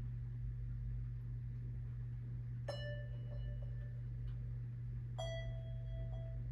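Two bell-like musical notes, one about a third of the way in and one more about two and a half seconds later, each struck and left ringing as it fades, over a steady low hum.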